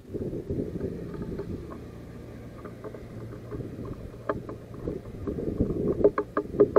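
Wind buffeting the microphone: a rough low rumble that starts suddenly and swells near the end. Over it come light, irregular taps and clicks of a great tit pecking seeds on a wooden feeder tray.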